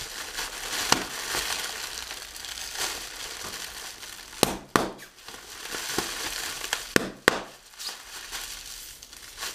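Clear plastic packaging bag being wrung and squeezed by hand to burst it. The plastic crinkles throughout, with sharp cracks about a second in, two more around four and a half seconds, and another pair around seven seconds.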